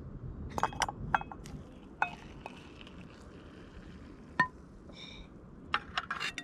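Metal-on-metal clinks and knocks as a camping cooking pot is lifted off a portable gas stove with a pot gripper and set back down, with coffee poured from the pot into an enamel mug. The clinks come in a quick run over the first couple of seconds, one sharp one a little after the middle, and a cluster near the end.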